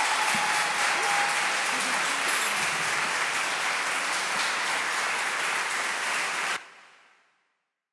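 Audience applauding steadily after a song, cut off suddenly and fading out about six and a half seconds in.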